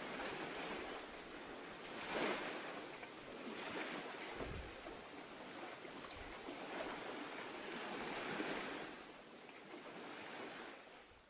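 Sea water rushing and splashing along a sailing yacht's hull under way, swelling and easing in surges, with wind gusting on the microphone and a few low thumps from it.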